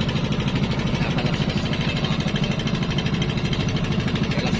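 A basnig fishing boat's engine running steadily with a fast, even pulsing.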